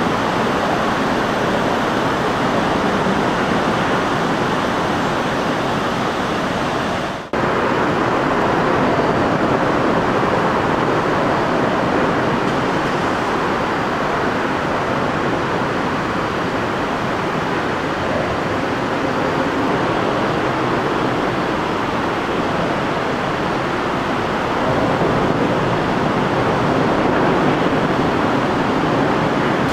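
Steady rushing of water pouring over a weir, with a brief drop-out about seven seconds in.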